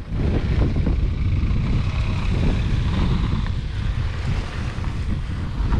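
Wind buffeting the microphone: a steady, dense low rumble with a hiss above it and no clear engine note.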